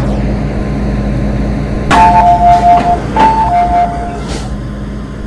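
Steady hum of a stopped MTR M-Train with its equipment running, and a two-tone electronic chime from the train sounding twice about two seconds in, each time a higher and a lower tone held for about a second.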